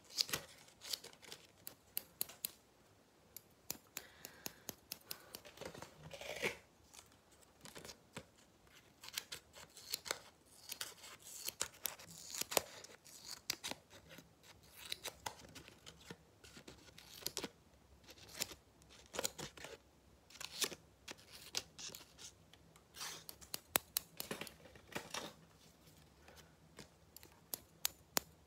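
Scissors snipping close to the microphone, as if cutting bangs: many sharp, irregular snips, some in quick runs.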